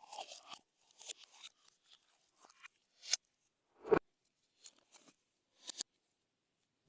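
Slime being mixed and worked by hand: irregular sticky crackles, clicks and little pops, with two sharper pops about three and four seconds in.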